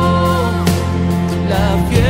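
Live worship band playing a Christian song, with a voice holding long, wavering notes over sustained bass and chords; the bass note changes near the end.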